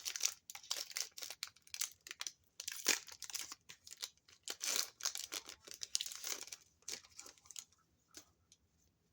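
Foil Pokémon booster pack wrapper crinkling and being torn open, a dense run of rapid crackles that thins to a few faint clicks near the end.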